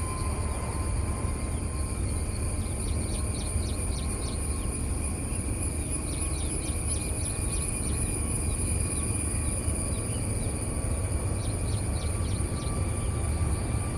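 Outdoor ambience: a steady low rumble underneath, a constant high-pitched insect drone, and several bursts of quick bird chirps.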